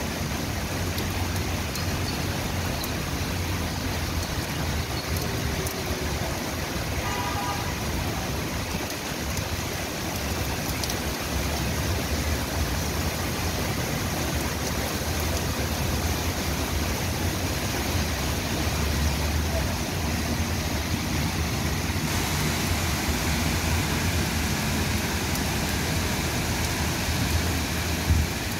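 Heavy rain falling, a steady even hiss, with a low rumble underneath.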